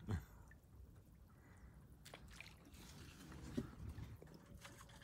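Faint water sloshing and lapping, with a few soft knocks, the loudest a low thump right at the start.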